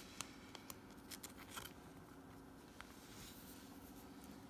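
Near silence, with faint plastic rustling and a few light clicks in the first two seconds as a trading card is slid into a soft plastic penny sleeve, over a low steady hum.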